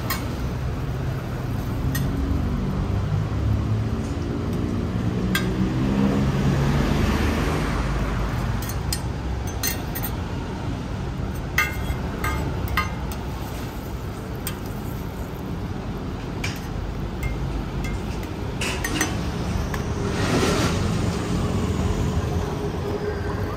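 Metal utensils clinking and tapping a number of times against pans or a griddle at a roti street stall, over steady street traffic. A vehicle engine rises in pitch in the first several seconds as it speeds up, and another vehicle swells past near the end.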